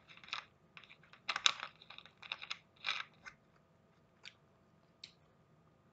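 Crunchy chewing and biting of breaded fried chicken strips, in a quick irregular run of crunches for about three seconds that thins out to a couple of faint ticks.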